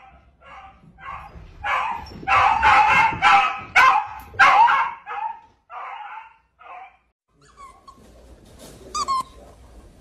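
Dog barking over and over, a quick run of short barks about two a second that are loudest in the middle and stop about seven seconds in.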